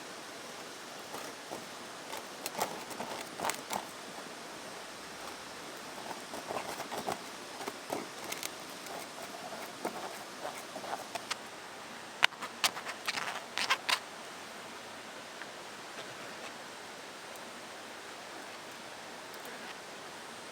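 Steady rush of running water, with irregular light clicks and knocks over it, the sharpest in a cluster near the middle.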